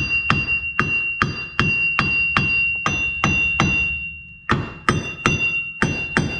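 Hammer blows on a car's rear wheel hub assembly, about two and a half a second, each one leaving a ringing metallic tone, with a short pause about four seconds in. The new hub is being tapped to seat it.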